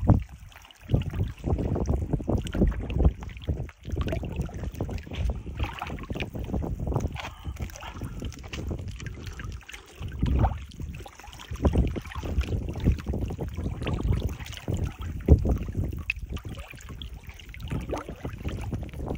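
Sea water lapping and sloshing against shoreline rocks, with irregular low gusts of wind on the microphone.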